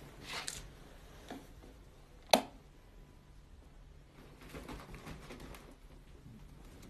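A single sharp click about two seconds in, then faint rustling in a quiet room.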